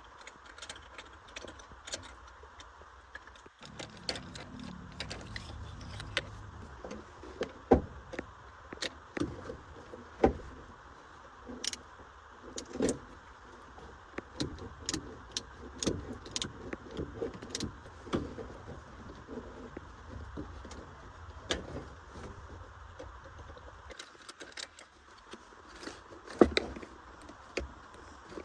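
Metal tools and car parts clinking and knocking irregularly during hands-on repair work, with a low steady hum that starts a few seconds in and stops near the end.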